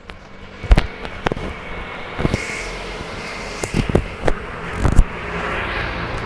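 Typhoon wind blowing, its noise building about a second and a half in, with a series of sharp bangs and knocks; the loudest come about a second in and about five seconds in.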